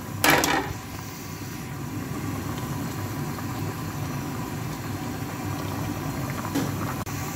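Spiced broth boiling hard in a large pot on a gas stove: a steady low bubbling rumble. A brief loud clatter comes just after the start.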